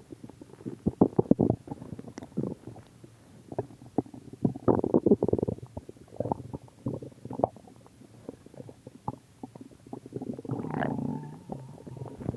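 A person's stomach growling: irregular runs of gurgles and short pops, louder bunches about a second in and again near the middle, and a longer drawn-out rumble near the end.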